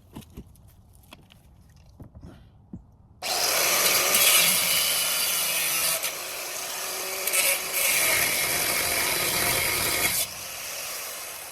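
Angle grinder cutting through the exhaust connections: a few small clicks and knocks, then about three seconds in the grinder starts and runs loud and steady with a couple of brief dips. About ten seconds in it is switched off and spins down.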